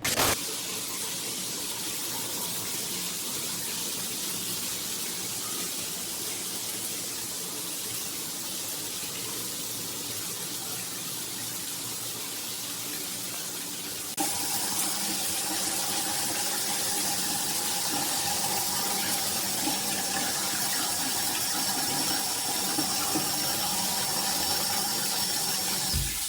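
Water spraying steadily from a NearMoon stainless steel rainfall shower head. About halfway through it gets a little louder, with a faint high whistle added.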